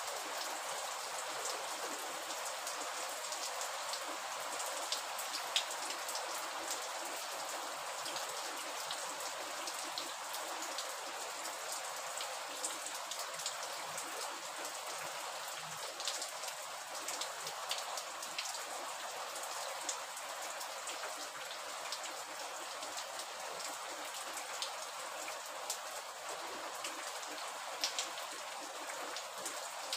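Steady rain falling, an even hiss dotted with many sharp taps of drops striking a surface.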